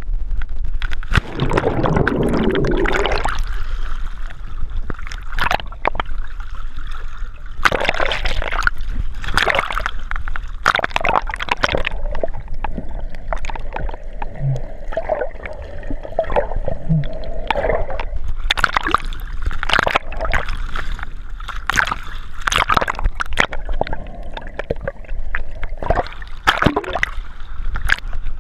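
Seawater sloshing, gurgling and splashing around a waterproof-housed action camera as it moves underwater and breaks the surface, in an irregular run of splashes. The sound is muffled through the housing.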